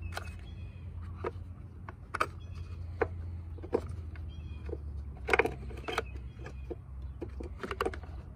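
Scattered sharp clicks and light knocks from hands handling the plastic wiring connector, hose and bagged replacement part of an outboard's idle air control valve, with a cluster of louder clicks about halfway through, over a steady low hum.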